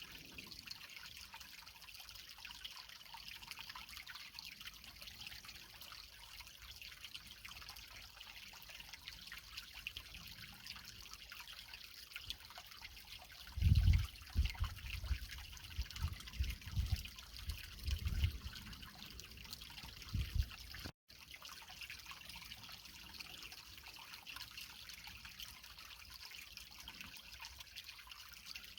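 Creek water trickling and babbling over rocks in a steady, even stream. About halfway through, a cluster of low thumps stands out as the loudest thing, and the sound cuts out for an instant a couple of seconds later.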